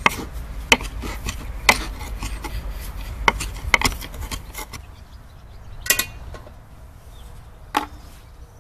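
Kitchen knife chopping fresh herbs on a wooden cutting board: sharp knocks of the blade on the board at an uneven pace, about five in the first four seconds, then two more a couple of seconds apart.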